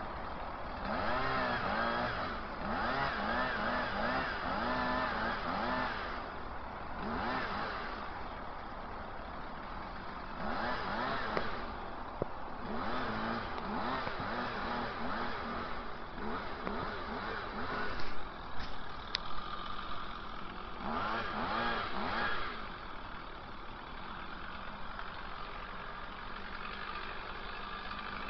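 Two-stroke chainsaw revving up in repeated bursts, its pitch rising and falling, and dropping back to a lower, steadier run between them. It settles to a steady idle near the end. A few sharp knocks come about two-thirds of the way through.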